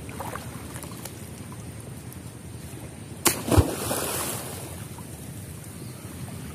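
Water sloshing around a person wading waist-deep while hauling a fishing net, then a sharp, loud splash about three seconds in as a clump pulled from the net is thrown and hits the water.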